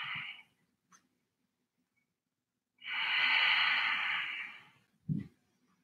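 A person's long, audible exhale of about two seconds, an even hiss near the middle, breathed while holding a yoga pose. A brief soft low thump follows near the end.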